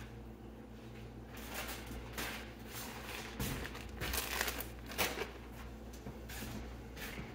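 Crinkling, rustling handling noise in irregular bursts, loudest about four to five seconds in, over a steady low electrical hum.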